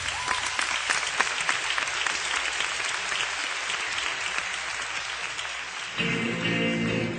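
Concert audience applauding, heard on an audience cassette recording. About six seconds in, the band starts playing again.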